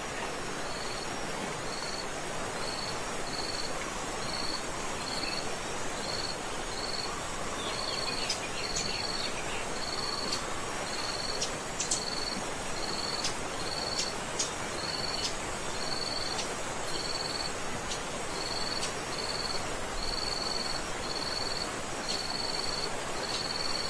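Waterfall rushing in a steady noise, with a high, short chirp repeating regularly about one and a half times a second over it.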